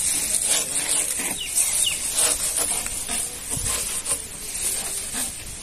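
Long green grass leaves rustling and scraping as bundles are handled and chopped by hand with a knife on a wooden board, in short irregular strokes. A bird chirps briefly twice partway through.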